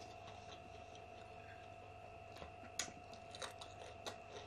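Faint mouth sounds of someone eating: chewing with a few soft clicks spread over the second half, over a low steady hum.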